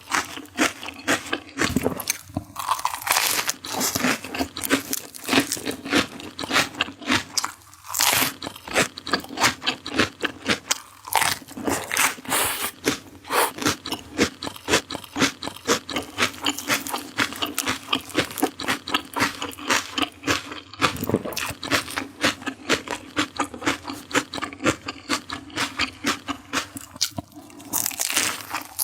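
Close-up crunching and chewing of raw vegetables, with rapid crisp crunches several times a second.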